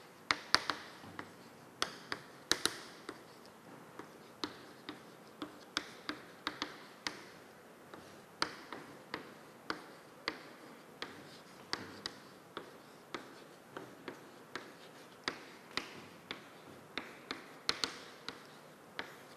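Chalk clicking and tapping against a chalkboard with each stroke of handwriting: a long run of sharp, irregular clicks, about two or three a second.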